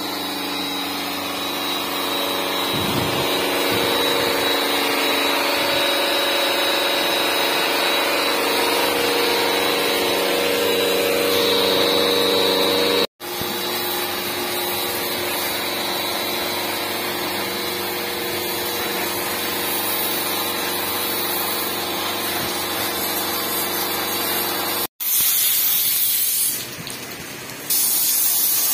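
Electric pressure washer running with a steady motor-pump hum and the hiss of its water jet spraying onto a truck's axle hub. Near the end, after a cut, the hum is gone and a steady hiss of heavy rain is left.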